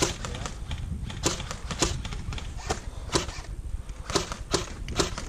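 Airsoft gun firing a string of single shots: sharp cracks at irregular intervals, roughly two a second.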